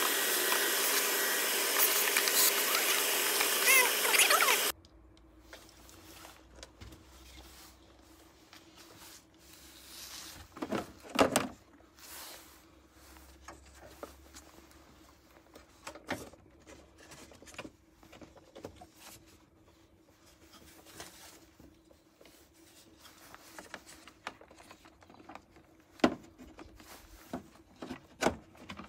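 Vacuum cleaner running loudly for about five seconds, sucking debris out of the empty air-filter housing, then cutting off abruptly. After it come scattered plastic clicks and knocks as the new panel air filter is dropped in and the housing lid is clipped back on.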